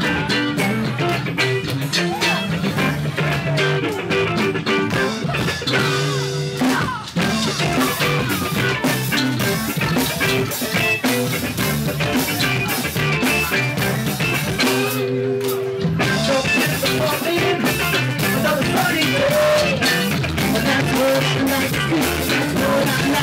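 Live rock band playing: electric guitar, bass guitar and drum kit, with singing.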